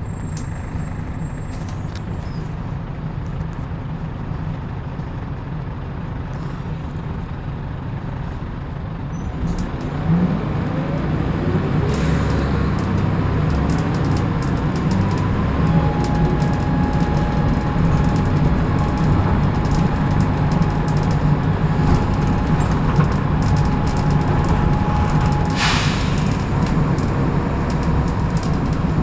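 Volvo B10BLE single-decker bus running on the road, its engine growing louder about ten seconds in. A steady, weird whistle starts about halfway through and cuts off near the end with a short hiss of air being released.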